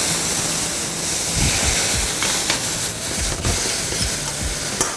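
White wine hissing and sizzling as it hits a hot saucepan of browned onions and boils off in steam: the pan being deglazed. A spoon stirs and clicks against the pan a few times.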